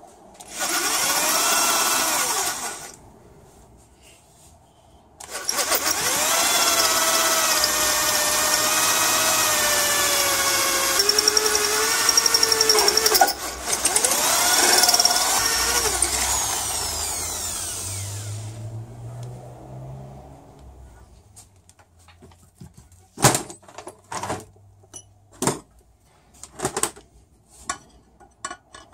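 Electric drill with an 11/32 bit boring slowly through the head of a seized high-tensile Torx bell-housing bolt: a short run, a pause, then a longer run whose pitch drops as the bit bites before the drill spins down. Near the end, a few sharp metallic taps from a metal rod worked at the drilled bolt head.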